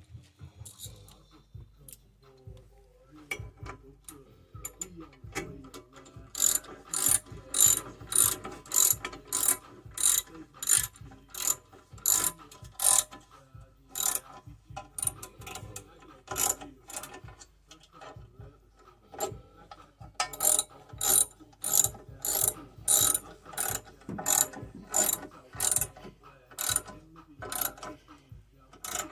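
Hand ratchet wrench clicking in repeated strokes, about two a second, in two long runs with a pause between, as bolts are turned while a new brake caliper is fitted.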